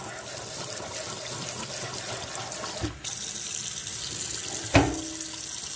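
Water from a newly installed Moen Adler kitchen faucet running steadily into the sink, with a brief dip about three seconds in. A single short knock sounds near the end.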